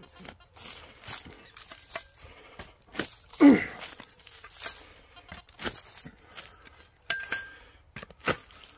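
Narrow digging spade driven into grass turf under a boot, a run of sharp crunches and tearing as it cuts through soil and roots. About three and a half seconds in, a short, loud vocal sound that falls in pitch.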